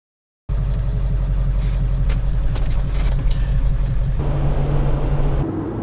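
Steady low rumble of a vehicle driving, heard from inside the cab, starting abruptly about half a second in, with a few brief clicks or rattles about two to three seconds in.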